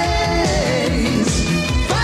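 Upbeat 1980s cartoon closing theme: rock music with a steady drum beat and a voice singing the melody.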